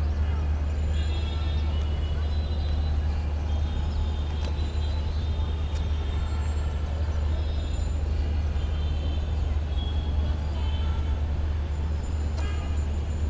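City street traffic ambience: a steady low rumble of vehicles with many short high tones scattered through it.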